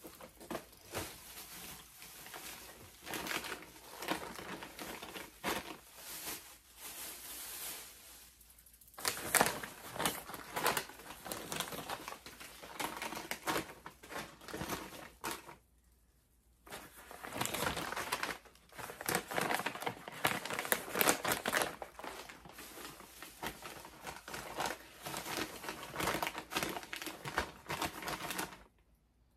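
Plastic snack bags and packaging crinkling and rustling as they are handled and put away, in uneven spurts with a short lull about halfway through.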